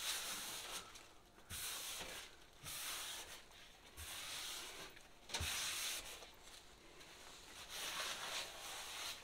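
A dry paper towel rubbed over a wall in a series of short strokes, wiping off the chalky residue left after stripping old wallpaper.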